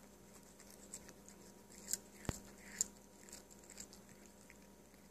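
A cat chewing a piece of lettuce leaf: faint, irregular crunches, with a few sharper ones about two seconds in.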